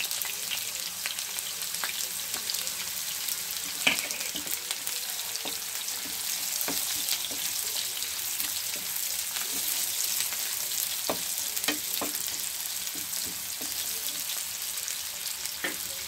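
Freshly added sliced onions sizzling steadily in hot oil in a frying pan, with occasional knocks and scrapes of a wooden spatula stirring them.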